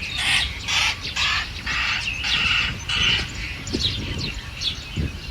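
A chorus of birds chirping and calling, with many short, quick notes overlapping and a few harsher chattering stretches.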